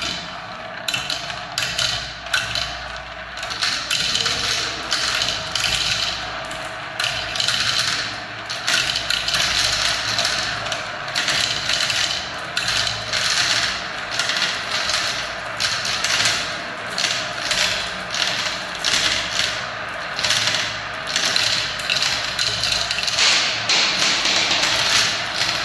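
Many marbles rolling and clattering down a spiral marble-run track, a continuous dense rattle of small clicks and taps.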